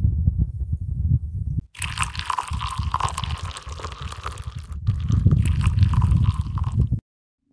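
Wind buffeting the microphone as a deep, irregular rumble, with a hiss over it from about two seconds in; the sound cuts off suddenly near the end.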